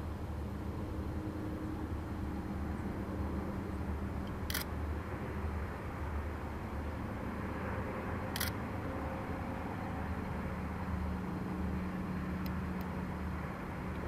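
Two DD51 diesel-hydraulic locomotives working in tandem, heard from far off: a steady low engine rumble with a drone whose pitch shifts slightly. Two short sharp clicks break in about four and eight seconds in.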